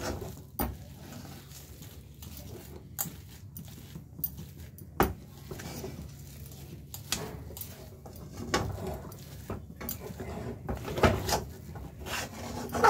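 Spatula scraping and knocking against a kadai as thick ground chana dal paste is stirred, in irregular scrapes with a few louder knocks. The paste is being stirred constantly so it dries out without sticking to the pan.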